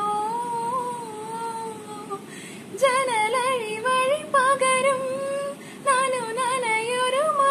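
A woman singing solo without accompaniment: a long held note that drifts slightly, a short break about two and a half seconds in, then quick, wavering, ornamented phrases.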